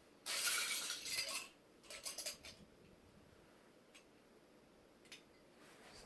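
A clatter of small hard pieces being handled or rummaged for about a second, then a few light clicks about two seconds in and a couple of single ticks later.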